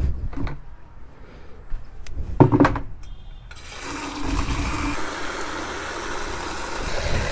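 Water pouring and splashing onto a mud-caked Hero Splendor motorcycle to wash it, starting about three and a half seconds in and running steadily, after a few knocks.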